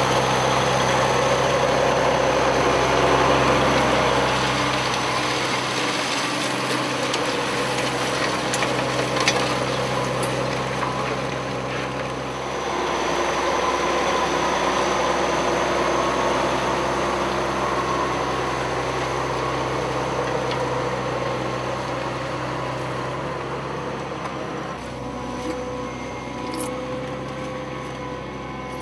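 Challenger rubber-tracked tractor's diesel engine running steadily under load while it pulls a disc cultivator through soil. The level eases a little towards the end.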